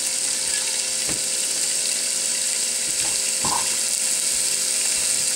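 Thin strips of steak sizzling steadily in a hot nonstick frying pan, with a few faint ticks.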